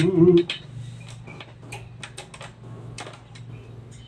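A man's held sung note ends about half a second in. Then come light, irregular clicks and taps of hands handling an electric stand fan's wire guard and plastic parts.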